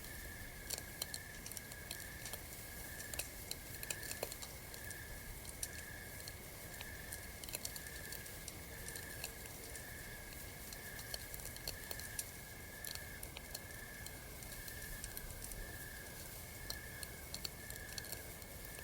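Campfire crackling, with many small sharp pops and snaps, over a faint chirp that pulses about once a second.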